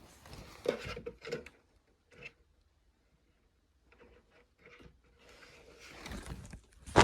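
Faint handling noises from working an animatronic's control box: a few light knocks and rubs, a near-silent stretch in the middle, then more faint rustling near the end.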